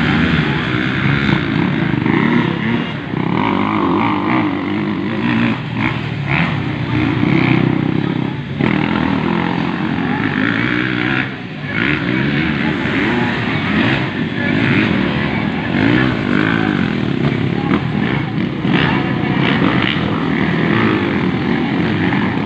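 Motocross dirt bike engines running and revving on the track, their pitch rising and falling with the throttle as the bikes ride past.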